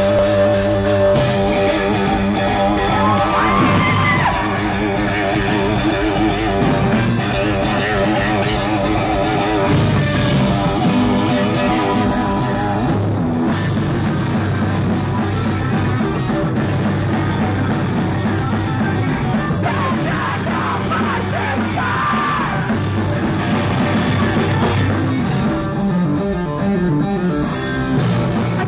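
Live post-hardcore rock band playing loud: distorted electric guitars, bass and a drum kit through the stage PA.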